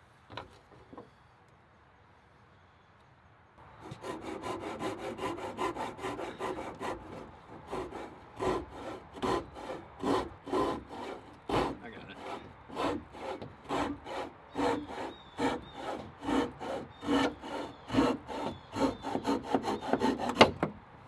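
Fine-toothed hand saw cutting through a wooden framing piece in quick back-and-forth strokes, starting about four seconds in and keeping a steady rhythm of roughly two to three strokes a second: trimming off a board that was cut too long.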